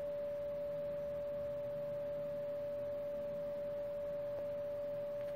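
A steady, unbroken pure electronic tone of one mid pitch, like a test tone or hum, over faint hiss.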